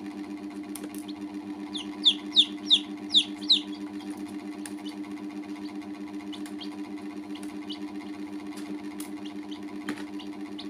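Baby chicks peeping: a quick run of about six loud, falling chirps about two seconds in, over a steady low hum and a few faint ticks.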